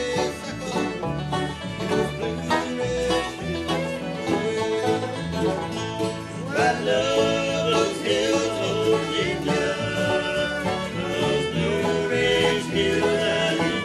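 Bluegrass music with banjo, guitar and fiddle.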